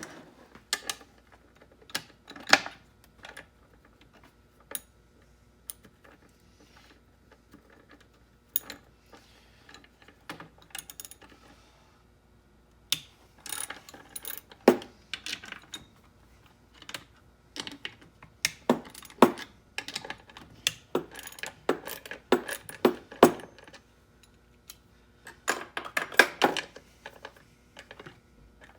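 Irregular clicks, clinks and knocks of hand tools and small metal parts as an electric motor is taken apart, scattered at first and coming in thick runs in the second half.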